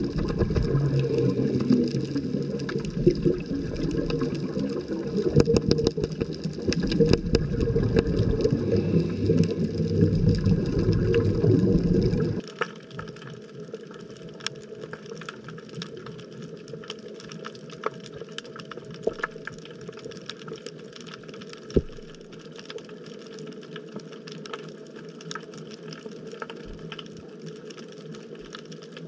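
Underwater sound picked up by a submerged camera: a loud low rush of moving water with scattered clicks. About twelve seconds in it drops suddenly to a quieter steady hiss with a constant crackle of small clicks.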